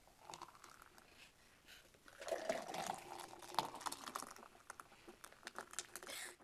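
Liquid pouring, mixed with many small clicks and clatter, busiest in the middle and cutting off abruptly at the end.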